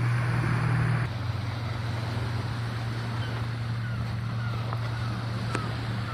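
A motor running at a steady low drone under a continuous rush of noise, easing slightly about a second in, with a few faint short falling chirps above it.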